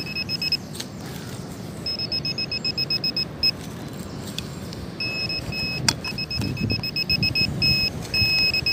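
Metal detector beeping over a buried metal target: a steady high tone in several short bursts, some broken into rapid pulses, with wind noise on the microphone underneath.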